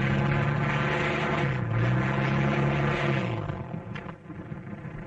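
Twin propeller engines of a light experimental plane running loud on the ground. The note dips and picks up again about halfway, then falls away and dies out about three and a half seconds in.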